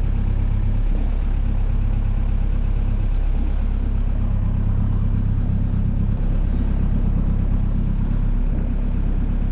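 A 26-foot Shamrock fishing boat's engine running at idle, a steady low drone, as the boat moves slowly out of its slip.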